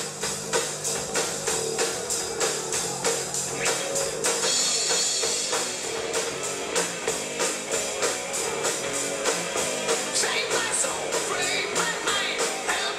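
Rock band playing live: a drum kit keeps a steady beat of about three hits a second under electric guitar, with a cymbal wash about four seconds in.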